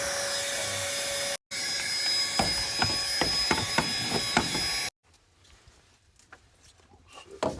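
Power tool running and cutting through the van's floor, with a steady whine and rhythmic scraping knocks; it cuts off abruptly about five seconds in, followed by faint clicks and handling.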